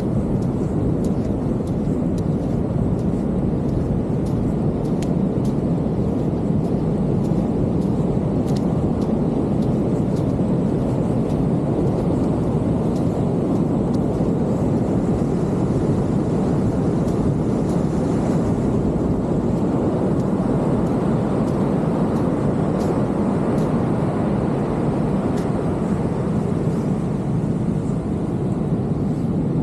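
Steady roar of ocean surf breaking on the beach, even and unbroken, with faint scattered ticks on top.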